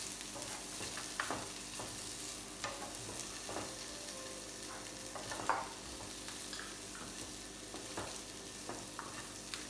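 Boiled potato cubes sizzling in hot oil as they are sautéed until crisp, turned with a wooden spatula that scrapes and taps against the pan every second or two, one scrape louder about five and a half seconds in.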